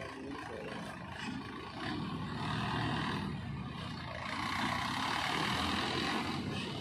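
Diesel engine of a Mahindra Yuvo 475 DI tractor running under load as it pulls a trolley loaded with soil, getting louder about two seconds in and again a little later.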